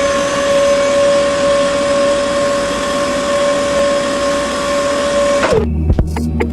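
Small electric motor running at a steady speed with a constant whine over a whirring hum, then winding down near the end.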